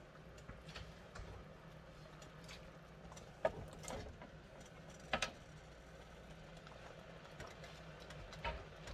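Faint sizzle of diced vegetables sautéing in a skillet, with a few soft knocks as sliced sausage is dropped into the pan, over a steady low hum.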